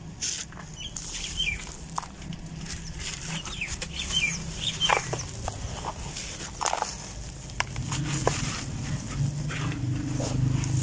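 Dry, gritty bajri (sand-and-gravel) dust crunching and crumbling as hands press into a loose mound, with chickens clucking in short falling calls through the first half. A low hum grows louder near the end.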